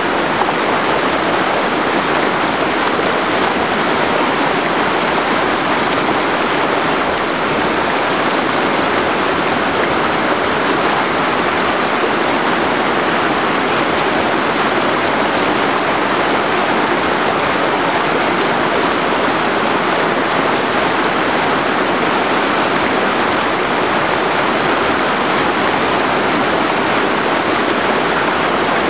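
Loud, steady rush of a whitewater rapid, the river pouring over rocks and churning into foam.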